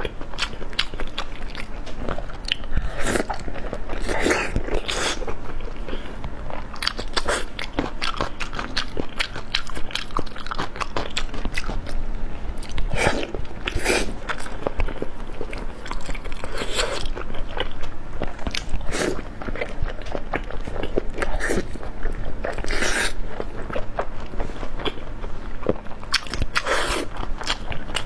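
A person biting and chewing food with crunching and wet mouth sounds, in irregular bites with louder crunches every second or two.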